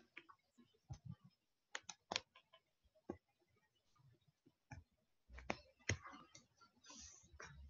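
Faint, irregular clicks and light knocks, with a low rumble and soft rustling starting about five seconds in.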